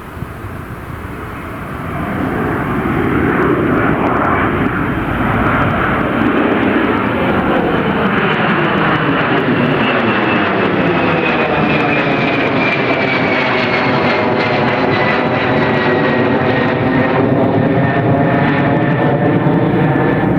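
Jet airliner's engines as it passes close by. The noise swells about two seconds in and then holds loud, with a high fan whine sliding steadily down in pitch through the second half.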